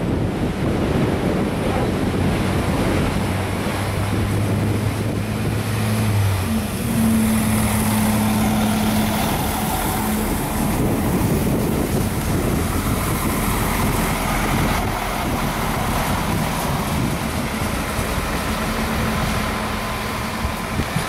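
Alstom Coradia LINT 41 diesel railcar passing close by and moving away: a steady low diesel drone with rail and rolling noise, its engine note stepping up in pitch about six seconds in. Wind buffets the microphone.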